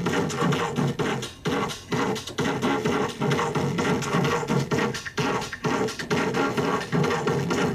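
Electronic dance music from a DJ set, heard through a television's speaker: a dense, pulsing beat with little deep bass.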